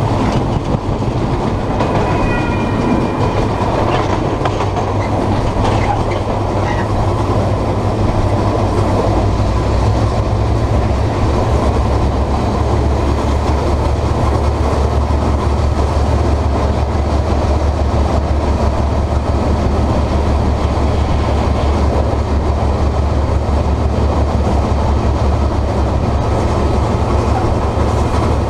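Moving train heard from the front of a banking locomotive coupled behind steam locomotive Ab 608's tender: steady low rumble of the running train with wheels clattering over the rails.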